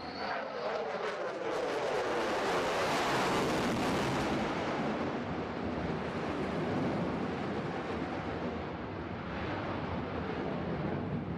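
F-22 Raptor's twin Pratt & Whitney F119 turbofan engines in a low pass: a falling whine as it goes by, then a loud rushing jet noise with crackle that builds to a peak about three seconds in and slowly eases away.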